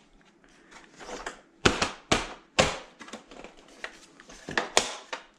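Plastic body shell of a Losi RZR Pro R RC side-by-side being pressed down onto its chassis: a few sharp plastic clicks and knocks, with light handling rustle between them.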